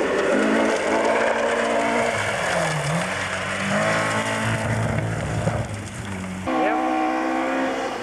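Vauxhall/Opel rally car engine running at high revs on a gravel stage. The pitch dips and climbs again about three seconds in, as the car lifts off or changes gear. Near the end the sound cuts abruptly to another car's engine.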